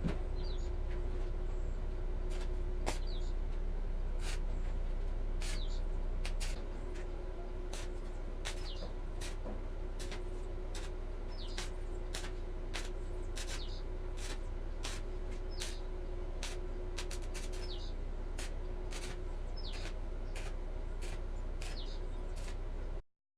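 Steady low hum with a faint held tone, under many short, high chirps scattered through it; the whole sound cuts off suddenly near the end.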